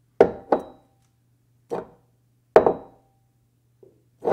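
Intro sound effect: a run of sharp knocks, two close together, then single ones spaced about a second apart. Several leave a brief ringing tone, over a faint steady low hum.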